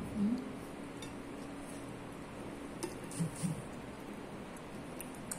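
Chopsticks clicking lightly against a ceramic plate a few times while someone eats, with a few soft chewing sounds over a steady low room hum.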